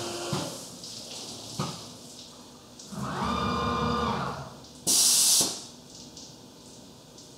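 Haas UMC 750 SS five-axis CNC mill working under flood coolant between drilling operations. A steady spindle tone stops just after the start and a couple of clicks follow. About three seconds in comes a motor whine lasting just over a second, then a short, loud hiss near the five-second mark.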